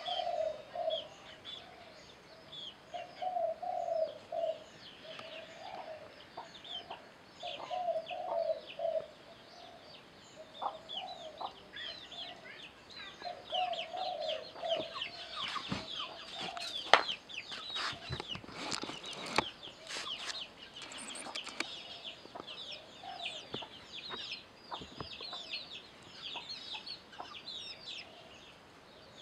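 A chicken clucking in short runs every few seconds, over steady high chirping. A cluster of sharp clicks in the middle includes the loudest moment.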